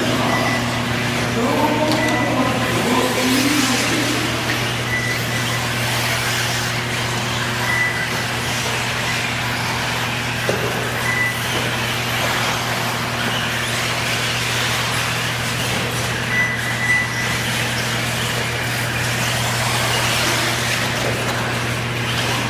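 1:8 scale electric off-road RC buggies racing on a dirt track: a continuous haze of motor and tyre noise with a steady low hum. A voice is heard over it in the first few seconds, and short high beeps recur every few seconds.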